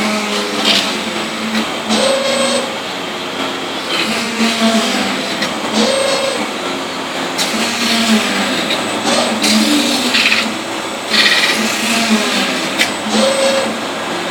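CNC metal-spinning lathe running: continuous machine noise with a hum and a higher tone that come and go every few seconds, mixed with stretches of bright scraping noise.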